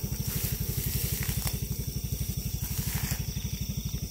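A small engine idling steadily with a quick, even low throb. Leaves rustle briefly a few times as a hand pushes through the bushes.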